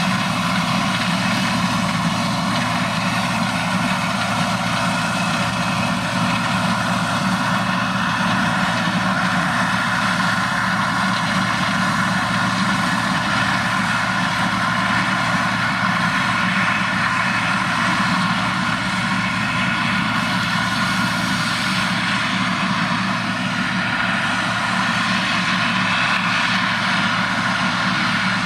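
Heavy farm machinery's engine running steadily, with no change in speed.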